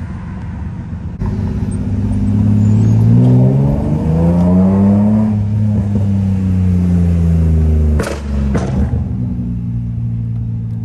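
BMW M3 engine accelerating hard: its pitch climbs for about three seconds, then falls as it eases off. Two sharp bangs come about eight seconds in, and the engine then settles back to a steady hum.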